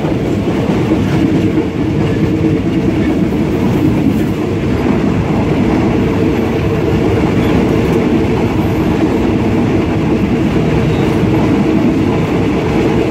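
Train carriage running along the track, its wheels and body giving a loud, steady rumble and rattle, heard through an open carriage door.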